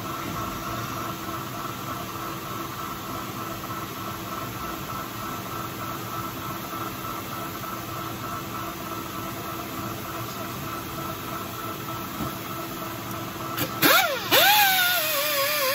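Old manual metal lathe running steadily, a hum with a few held tones. About fourteen seconds in come a couple of sharp knocks, then a louder whine that wavers up and down in pitch.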